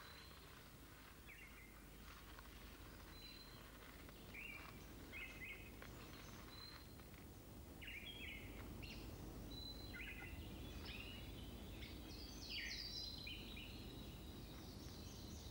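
Faint outdoor ambience of several birds calling, with short chirps, brief thin whistles and quick downward-sweeping notes that grow busier in the second half, over a steady low rumble.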